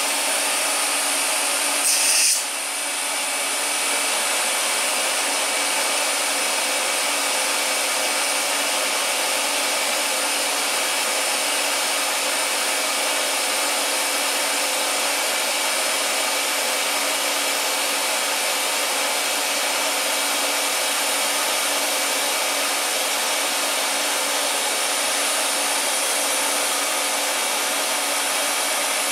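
TIG welding of a thick stainless steel turbo flange: a brief crackle as the arc strikes about two seconds in, then a steady arc hiss. Underneath runs the constant hum of a powered air-purifying respirator's blower.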